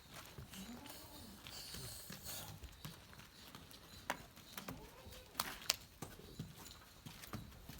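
A cow with a breathing problem: a short low grunt in the first second, a breathy rush about two seconds in, then a few scattered sharp knocks.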